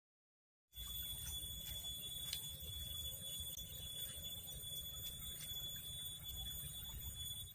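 Steady high-pitched insect drone, several constant shrill tones, over a low wind rumble. It starts suddenly about a second in.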